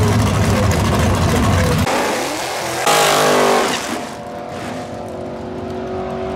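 Drag car engine rumbling loudly, then revving up about two seconds in to a brief, very loud burst of high revs for just under a second. After that the engine settles to a quieter, steady note.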